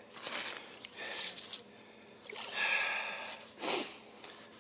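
A man breathing hard in a few short breaths and one longer sigh near the middle: frustrated exhales right after a big pike broke his line.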